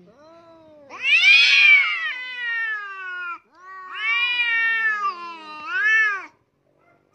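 A cat yowling in long, drawn-out meows that rise and fall in pitch: a faint one, then a loud long one, a second long one and a short last call.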